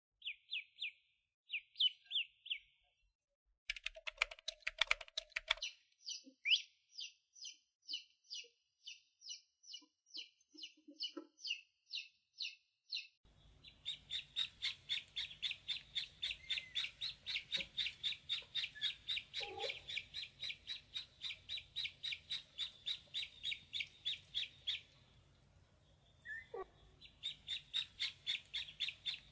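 Ducklings peeping: high, even peeps repeated several times a second, in short runs at first and then as a near-continuous string, with a brief pause about two-thirds of the way through.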